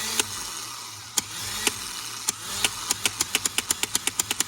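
Denso starter motor spinning freely on a bench test, a steady high whir that shows the repaired solenoid connection is working. Sharp clicks cut through it, a few at first, then quickening to about six a second near the end.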